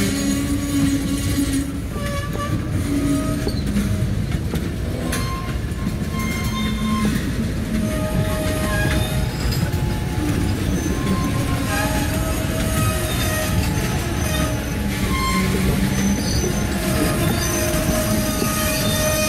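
Freight train tank cars rolling slowly past, over a steady rumble. Their steel wheels squeal in thin, shifting tones that keep starting and stopping.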